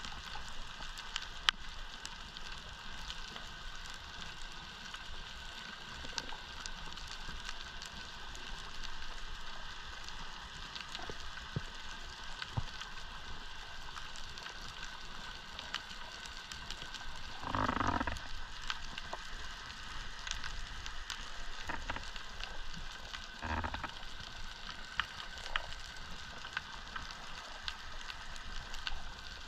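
Underwater ambience: a dense, steady crackle of countless tiny clicks from snapping shrimp on the reef. A short, louder rushing sound comes about eighteen seconds in, and a fainter one some five seconds later.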